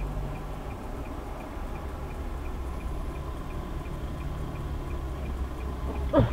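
Inside a stopped car: a low, steady engine idle with faint, regular ticking, about two to three ticks a second. A brief rising sound comes right at the end.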